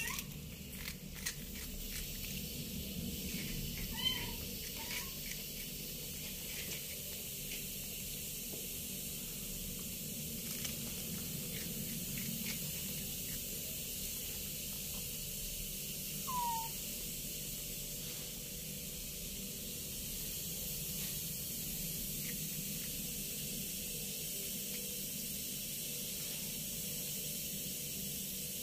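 Tabby kitten eating crackers, with a few faint crunches in the first seconds and short high mews: two about four to five seconds in and one falling mew a little past the middle. A steady hiss and low hum sit underneath.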